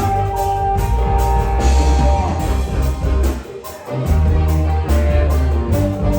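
Live rock band playing, with drum kit, electric bass and guitar under a long held lead note; the bass drops out briefly about halfway through, then comes back in.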